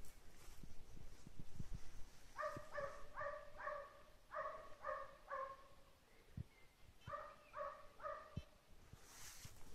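Faint barking of a hunting dog giving tongue while working a hare: a run of quick, evenly spaced yelping barks, about three a second, then a pause and a shorter run of four.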